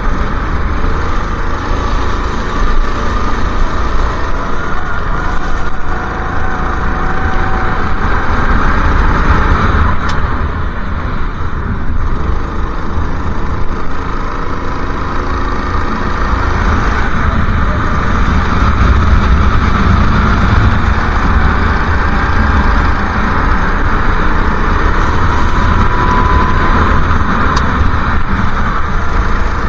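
Go-kart engine running hard under racing load, its pitch rising on the straights and falling away into the corners, heard from an onboard camera over a heavy low rumble.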